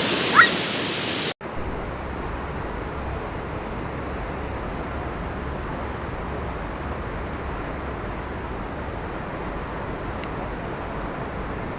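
Rushing waterfall with a brief rising whistle-like sound about half a second in. A second or so later an abrupt cut gives way to a duller, steady rushing noise with a low rumble.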